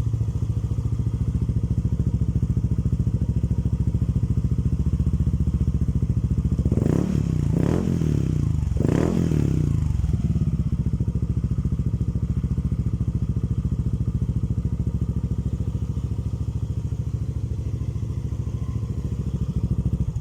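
Yamaha Aerox 155 scooter's single-cylinder engine idling through a kalkal (gutted-muffler) exhaust pipe. Two short throttle blips rise and fall about 7 and 9 seconds in, then it settles back to a steady idle.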